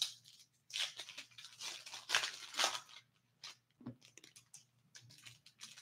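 Foil hockey card pack being torn open and the cards slid out, crinkling in short irregular bursts, with a soft tap near the four-second mark as the stack is set down on the table.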